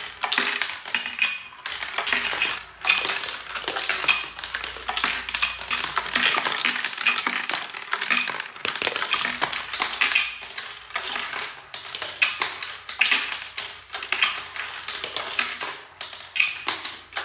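Coins rolling down a wooden self-sorting coin bank, clicking and clattering against the ramp and sorting pins and dropping into the coin trays, a dense run of quick taps throughout, with music underneath.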